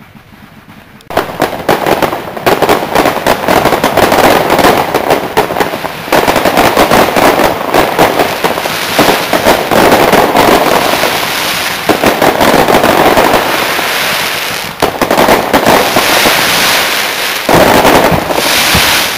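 Aerial fireworks display: a dense, unbroken barrage of cracking bursts and bangs that starts about a second in, surges several times, and drops away at the very end.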